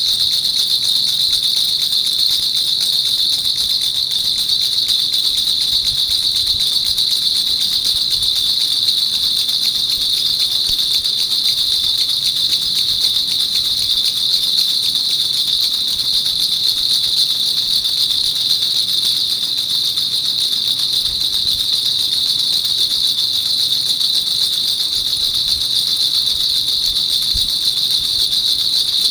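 Baby rattle (jhunjhuna) shaken rapidly and without a break: a steady, dense, high-pitched rattling.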